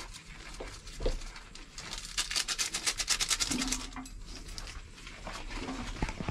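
Hands mixing dry flour in a steel bowl: soft knocks, then about two seconds of quick scratchy rustling strokes, roughly nine a second.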